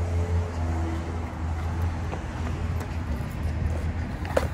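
Road vehicle driving: a steady low rumble with faint noise above it.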